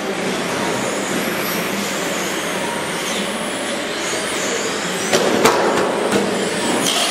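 Radio-controlled race trucks running laps on an indoor track: a steady hiss of motors and tyres with faint whines. A sharp knock comes about five seconds in.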